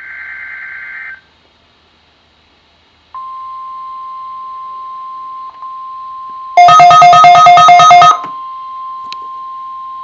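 NOAA Weather Radio test signal: a second of buzzy EAS/SAME data-burst tones, a short pause, then the steady 1050 Hz warning alarm tone. Midway through, a loud rapid electronic beeping of about six beeps a second, the weather radio's own alert alarm, sounds over the tone for about a second and a half before the steady tone carries on.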